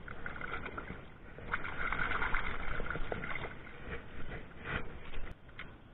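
Shallow river water splashing and sloshing around hands releasing a longnose gar, in irregular splashes, busiest in the middle, with a few sharp splashes near the end.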